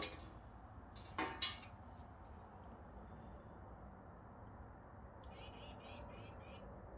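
Two light knocks about a second in, then faint high chirps of a small bird, with a quick run of chirps near the end.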